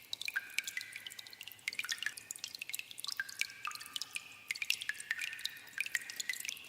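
Water dripping in a cave: many drops falling irregularly, several a second, each a short, sharp plink with a brief pitched ring.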